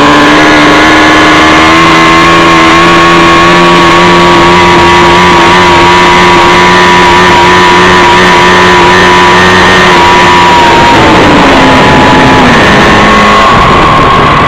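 A loud engine held at high, steady revs, its pitch dropping in two steps from about eleven seconds in as the throttle comes back.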